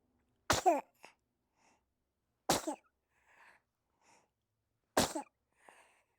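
A baby making three short, sharp, explosive sneeze- or cough-like bursts, each about two and a half seconds after the last, with faint breaths and little vocal sounds between.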